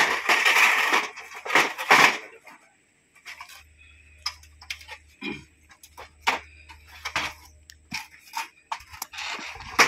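Aluminium stepladder clattering and knocking against a concrete drain as it is lowered in, with scraping in the first two seconds and then a run of sharp metallic knocks.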